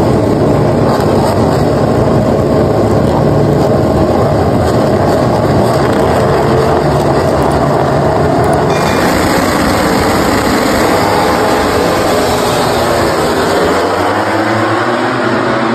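MotoGP racing motorcycles' four-cylinder engines revving loudly on the starting grid. About nine seconds in the sound turns brighter, and near the end the engines climb in pitch as the bikes launch and accelerate away.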